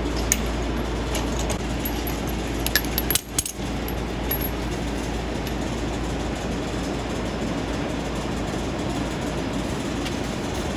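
Steady garage background noise with a low hum, broken by a few sharp metallic clinks of lug nuts and a socket, most of them about three seconds in.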